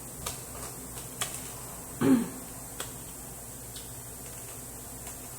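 Close-miked eating: a few sharp mouth clicks and smacks while chewing, with one short voiced throat sound about two seconds in.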